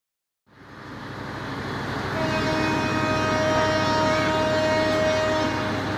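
Railway station noise with a diesel locomotive running. A train horn sounds one steady note for about three seconds in the middle.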